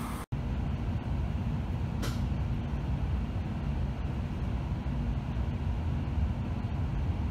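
Cabin of an N700-series Shinkansen pulling away from the station: a steady low hum with a few faint clicks, and a brief hiss about two seconds in.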